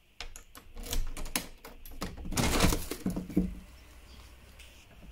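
A glass-paned door being unlatched and opened: a quick run of clicks and knocks from the handle and latch, then a louder rushing swish a little over two seconds in as the door swings open. A steady low rumble of outside air follows.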